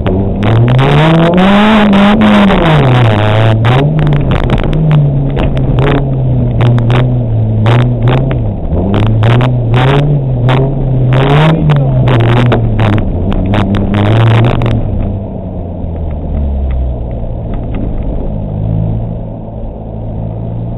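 Rally car engine heard from inside the cabin, revving hard and rising and falling in pitch through gear changes, with frequent sharp knocks over it. About three-quarters of the way through it drops to quieter, steadier running.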